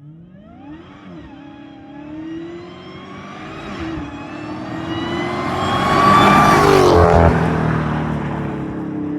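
Supercharged 6.2-litre HEMI V8 of a Dodge Hellcat on its stock exhaust, accelerating past: the engine note climbs steadily in pitch and grows louder, peaks about six to seven seconds in, then drops in pitch as the car goes by.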